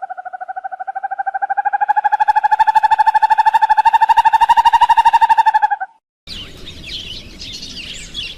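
A long animal trill: rapid pulses at about a dozen a second on one pitch, rising slightly and growing louder over about six seconds before stopping abruptly. After a short gap, a busy chorus of small birds chirping takes over.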